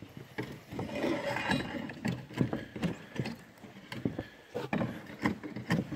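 Footsteps in work boots on bare OSB roof sheathing: irregular thuds, about two a second.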